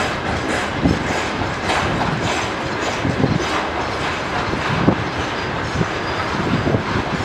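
Freight train of covered hopper wagons rolling past: a steady rumble of steel wheels on rail, with irregular clacks and knocks as the wheels cross rail joints.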